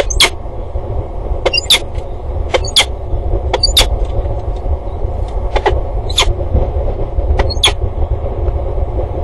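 A steady low rumble with a hum above it, broken by about a dozen sharp, irregular clicks.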